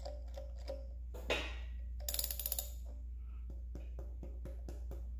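A ratchet wrench on the crankshaft clicks in a quick run of about ten sharp metallic clicks about two seconds in, as the engine is turned to top dead centre. Around it are a few light knocks and clicks of tool handling, over a low steady hum.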